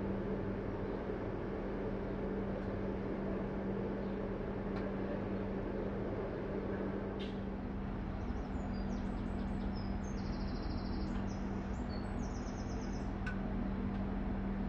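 Class 142 Pacer diesel railbus heard from on board, its engine running with a steady hum over a constant rumble. A few faint clicks come through, and a run of high-pitched chirping tones sits over it in the second half.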